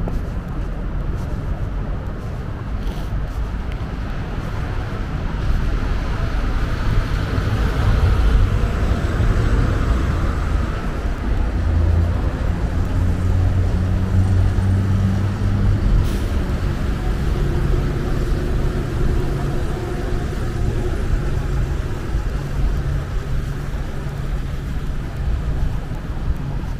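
Road traffic on a city avenue: cars passing with a steady rumble of engines and tyre noise, swelling as vehicles go by about a third of the way through.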